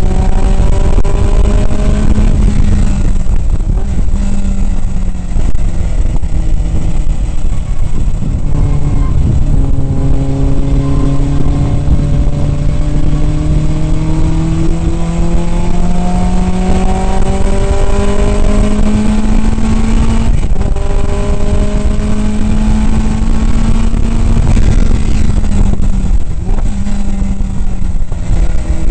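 1967 Datsun 2000 roadster's four-cylinder race engine at racing speed, heard from the open cockpit. The revs climb in long pulls and drop back at shifts about two seconds in and about twenty seconds in, then fall away near the end as it slows. Heavy wind and road noise run underneath.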